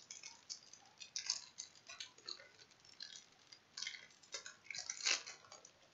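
Trading cards being handled and sorted by hand: irregular light clicks and rustles of card stock and plastic, the sharpest about five seconds in.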